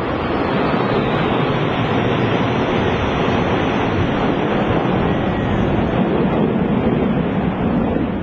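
Jet engines of a large formation of F-14 Tomcat fighters flying overhead: a loud, steady rush of noise that swells slightly about a second in.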